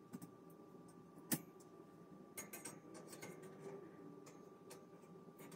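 Light metallic clicks and taps of wire shelving parts being handled during assembly: one sharp click about a second in, then a quick run of taps around the middle. A faint steady hum lies underneath.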